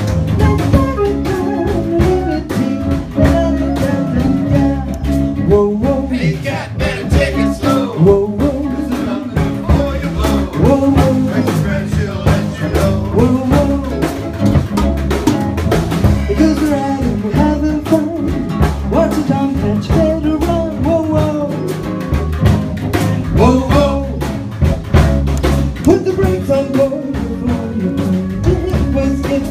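Swing-blues band rehearsing without horns: drum kit, guitar and bass playing a steady beat under a singing voice.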